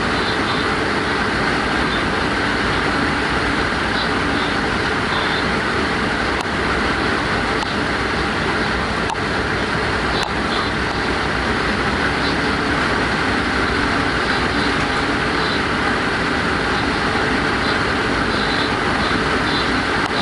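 Steady running noise of a Class 186 (Bombardier TRAXX) electric locomotive under way on the rails, with a few faint clicks in the middle.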